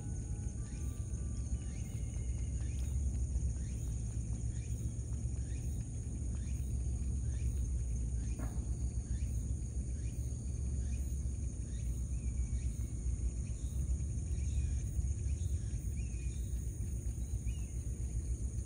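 Outdoor ambience: steady high-pitched insect trilling over a low rumble, with a run of short falling chirps about once a second.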